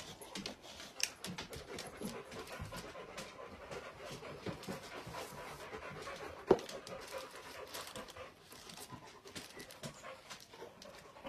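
Clear plastic wrapping crinkling and rustling as it is pulled off a sword, with one sharp knock about six and a half seconds in.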